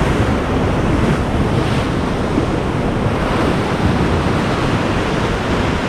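Rough sea surging and breaking against a rock ledge in a steady wash of surf, with wind buffeting the microphone.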